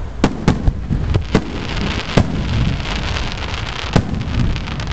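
Aerial firework shells launching and bursting: a quick run of sharp booms in the first second and a half, a louder bang about two seconds in, then a dense spell of crackling, with another loud bang about four seconds in.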